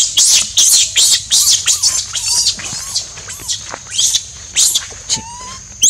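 Baby macaque screaming: a fast run of short, shrill, high-pitched cries, several a second, easing off near the end.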